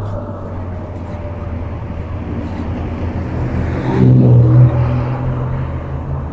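MG TF sports car driving with the roof down: a steady engine drone and road noise. About four seconds in, a passing car's engine swells louder for roughly a second, then eases back.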